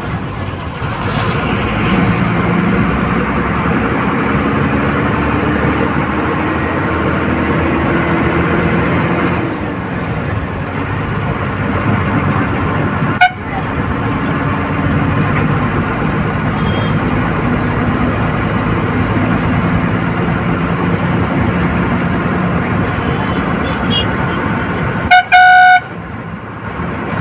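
Old Tata bus's diesel engine running under load, heard from inside the cabin, its pitch rising as the bus accelerates, then dropping briefly around a gear change. A sharp knock comes about 13 seconds in, and a loud horn blast sounds for about a second near the end.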